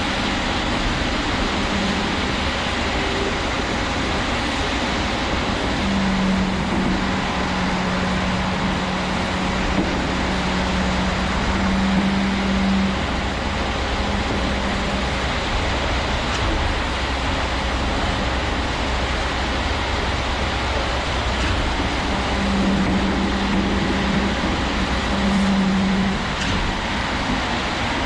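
Concrete pump truck running while concrete is pumped through its boom and end hose: a steady engine and machinery noise with a low hum that comes and goes.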